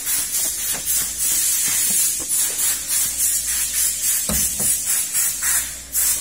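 Loud, steady hiss like air or water spraying, with a few light knocks, the strongest about four seconds in.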